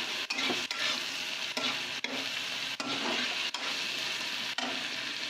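Chopped onion, garlic, green chilli and tomato sizzling in hot oil in a kadai, with a steady hiss. A spatula stirring them scrapes and taps against the pan about every half second.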